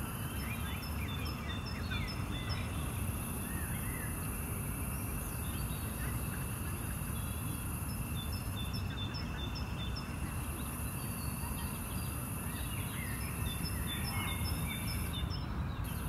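Outdoor ambience of birds chirping, including a series of short repeated notes, with a high insect drone that starts about a second in, breaks off for a second or two in the middle and stops again near the end, over a steady low rumble.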